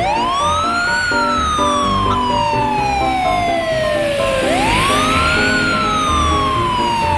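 A wailing siren, twice: each time it rises quickly and then falls slowly over about three and a half seconds, the second wail starting about four and a half seconds in. Background music with a pulsing bass plays under it.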